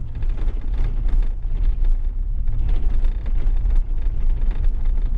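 Car driving over a rough dirt track: a steady low rumble with frequent small rattles and knocks.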